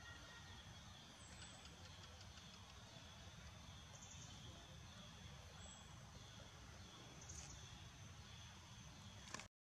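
Near silence: faint outdoor ambience with a steady high insect drone that swells every second or two. The sound cuts out suddenly just before the end.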